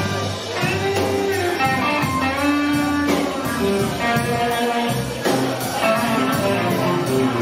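A live band playing, with a guitar carrying a melodic lead line of bending, changing notes over a steady bass.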